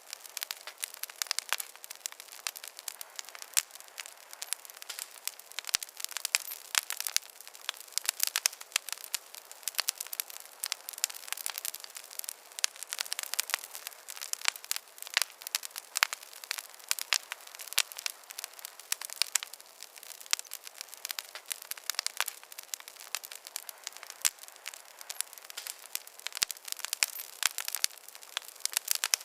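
Campfire crackling: a dense, irregular stream of sharp snaps and pops, with hardly any low rumble beneath them.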